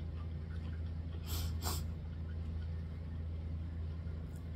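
A steady low hum, with two quick sniffs through the nose about a second and a half in.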